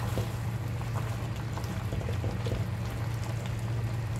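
Nilagang baboy broth bubbling at a simmer in a pan, with a spatula moving through it, over a steady low hum.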